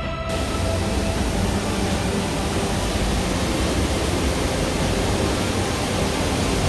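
Steady rush of falling water from a waterfall, an even hiss with no rhythm, cutting in abruptly just after the start.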